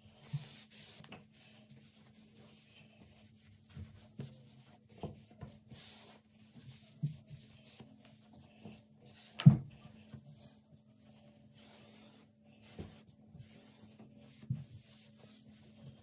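Cloth wiping a bathroom countertop and faucet in short rubbing strokes, with scattered light knocks and one sharper knock about halfway through. A steady low hum runs underneath.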